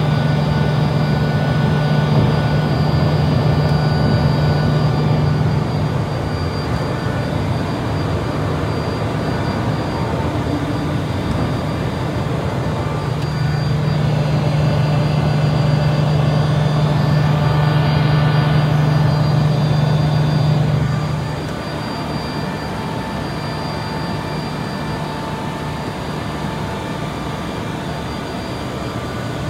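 Cabin noise of a Beechcraft Premier I business jet taking off and climbing: its twin Williams FJ44 turbofans at high power give a steady drone with a low hum and a layer of steady whining tones. The noise drops somewhat about two-thirds of the way through and then holds steady.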